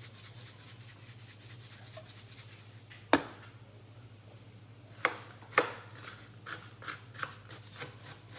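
A spatula knocking and scraping against a frying pan as mixed vegetables are stirred: one sharp knock about three seconds in, then two louder clicks and a run of lighter clicks about three a second, over a low steady hum.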